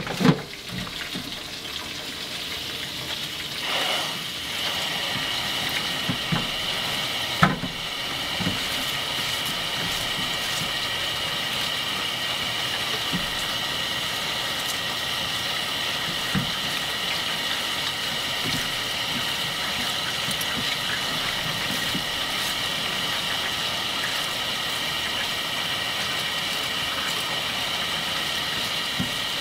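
Kitchen tap turned on about four seconds in, then running steadily into a plastic colander as vegetables are rinsed by hand, with a single sharp clack a few seconds later.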